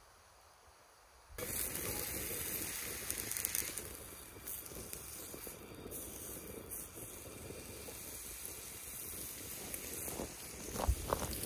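Steak sizzling on a hot ridged grill plate, a steady hiss that starts abruptly about a second in, with a few sharp clicks near the end.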